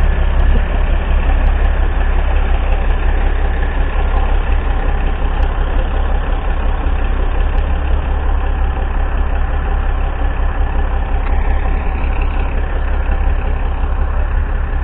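Heavy diesel semi-truck engines idling: a loud, steady low rumble.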